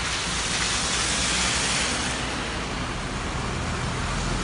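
Trucks driving through floodwater on a road, their wheels throwing up a rushing spray of water over a low engine rumble; the splashing swells about a second or two in as the nearest truck comes close.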